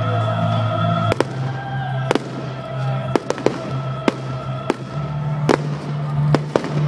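Fireworks going off over loud music: about ten sharp bangs of bursting aerial shells, the first about a second in, then at irregular intervals.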